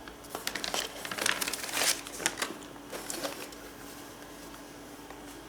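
Packaging of a motherboard box being handled and opened: rustling and crinkling with light clicks and taps, thinning out after about three seconds.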